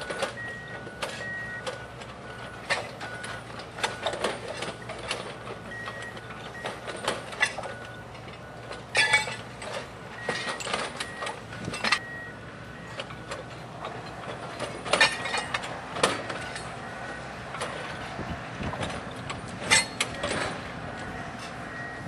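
Railroad tie-exchanger machine working wooden crossties: repeated knocks and clatter of timber and ballast, the sharpest hits about 9, 15 and 20 seconds in, over the machine's steady running. A two-tone warning beep repeats about twice a second in several stretches.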